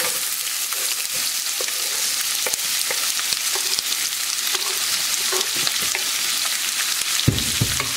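Hot oil sizzling steadily in a pan with tempering spices as diced onion is scraped into it off a wooden cutting board with a wooden spatula, with light scrapes and taps of the spatula on the board. A low thump comes near the end.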